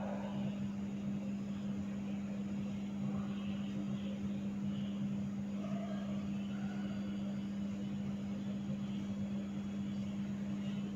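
A steady low hum at one constant pitch, with faint scattered sounds above it.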